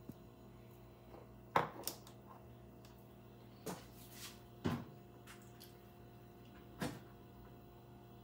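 Scattered sharp knocks and clacks of things being handled in a kitchen, about five in all, spaced a second or two apart, over a faint steady hum.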